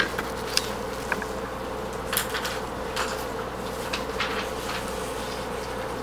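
A steady background hum, with a few soft rustles and taps as a sheet of drawing paper is picked up and handled.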